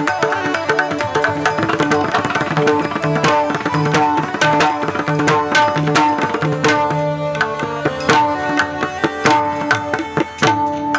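Pakhawaj drumming in a fast, busy rhythm over steady held melodic notes: an instrumental passage between sung lines of a Warkari bhajan.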